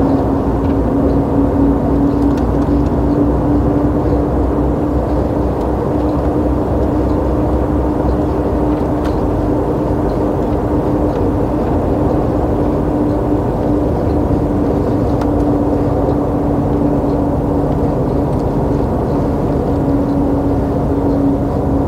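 DAF semi-truck driving on the highway, heard from the cab: a steady engine drone with a strong constant hum over road rumble. The deepest rumble is heavier at first and eases after about eight seconds.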